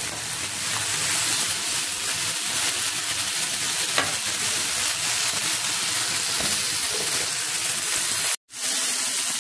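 Fresh red chillies sizzling in hot oil in a non-stick frying pan, a steady hiss, stirred with a spatula at the start. The sound cuts out completely for a split second about eight seconds in.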